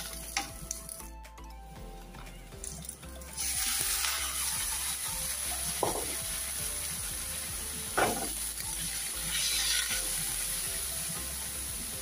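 Small prawns frying with onions and green chilli in a little oil in a karahi. The sizzle starts suddenly about three seconds in and carries on steadily, with a wooden spatula knocking against the pan twice.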